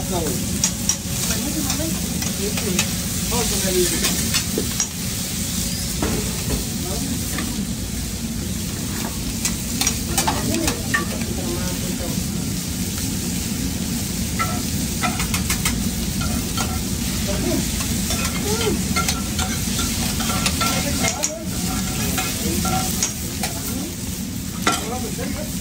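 Meat, shrimp, onions and nopales sizzling steadily on a steel flat-top griddle, while metal spatulas scrape and tap across the plate in scattered sharp clicks and clanks.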